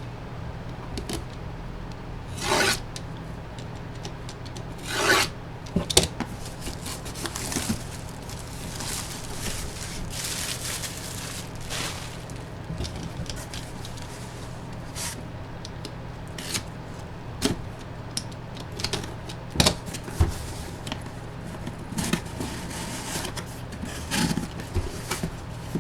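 Packaging being handled and opened by hand: rubbing, scraping and rustling, with scattered sharp clicks and a few louder rustles. A steady low hum runs underneath.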